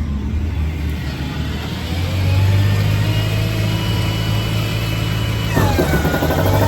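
Ford F550 service truck's engine running with the PTO switched on; about two seconds in the engine note steps up to a steady, louder hum. Near the end the PTO-driven hydraulic air compressor starts, adding a dipping-then-rising whine and a busy mechanical rattle over the engine.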